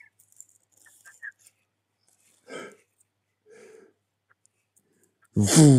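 A man's voice imitating a car going past: one loud, short tone falling in pitch near the end.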